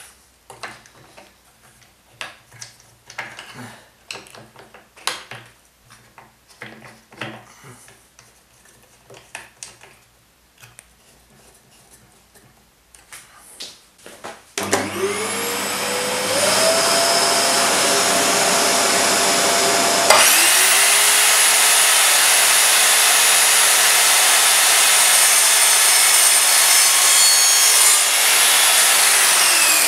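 Clicks and knocks as the pipe is clamped into the saw, then the Evolution R210SMS multi-material mitre saw's motor spins up to a steady whine about halfway through. Several seconds later the sound changes and gets louder as the blade cuts through PPR plastic pipe.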